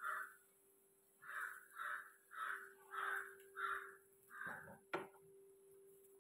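A bird calling over and over, about seven calls spaced roughly half a second apart, then a single sharp click about five seconds in.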